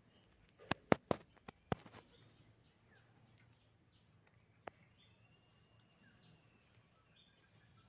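A few sharp clicks close together in the first two seconds and a single one about halfway, over a faint outdoor background with small birds chirping in the distance.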